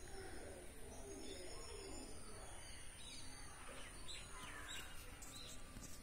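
Faint bird chirps over a low outdoor background hum and a steady thin high-pitched hiss.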